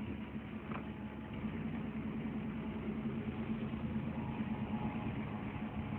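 Car engine and road noise while driving, a steady low hum that grows slightly louder about two seconds in.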